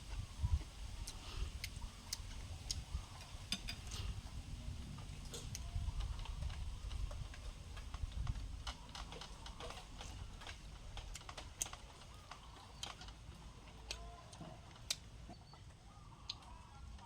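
Scattered light clicks and taps at an irregular pace over a low rumble, thinning out toward the end.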